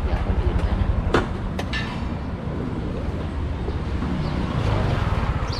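Motorbike engine running with a low rumble, pulsing fast at first. Two sharp clicks a little over a second in.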